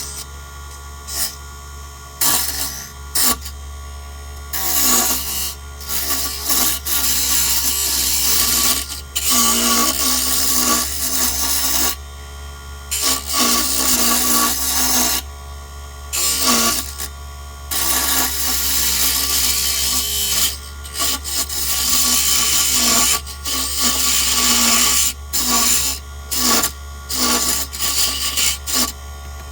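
Small wood lathe running with a steady hum while a tool is pressed again and again against two spinning wooden lure blanks, a bass popper and a minnow. Each pass gives a rough, hissing scrape lasting from a fraction of a second to a few seconds, with brief gaps where only the motor hum is left.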